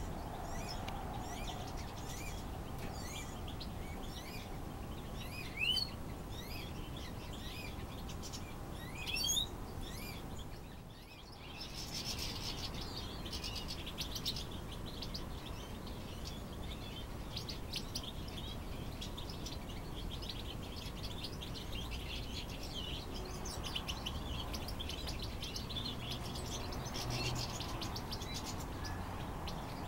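Small finches chirping and calling in an aviary: many short, high chirps with a couple of louder calls in the first ten seconds. The sound drops briefly about eleven seconds in, and after that the chirping is denser and busier.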